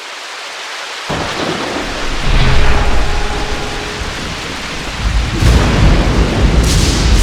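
Rain hiss fading in, then thunder rumbling in two loud swells, the first starting about a second in and the second about five seconds in.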